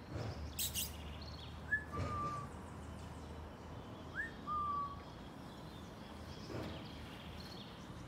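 Two short whistled calls about two and a half seconds apart, each a quick upward slide followed by a lower, briefly held note, over a faint steady background hum.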